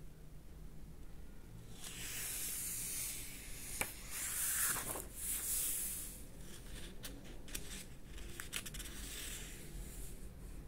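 Paper pages of an old hardbound encyclopedia being turned by hand: a rustling swish of about four seconds starting about two seconds in, then a handful of short paper crackles as the page is laid flat.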